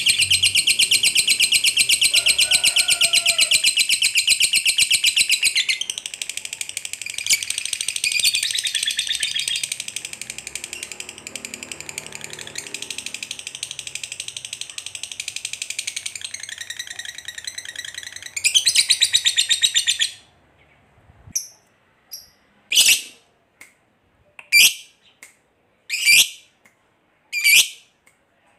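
Lovebird calling a long, rapid chattering trill, the 'ngekek' call, for about twenty seconds. The trill is loudest at the start and again just before it breaks off. After the break the bird gives single sharp chirps about every second and a half.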